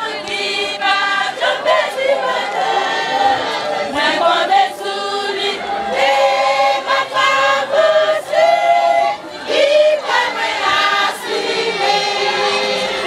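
A church choir of women's voices singing a gospel hymn together, holding long notes in steady phrases.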